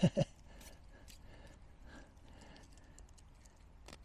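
Pocket knives being handled: three quick knocks right at the start, then low rustling, and two sharp clicks near the end.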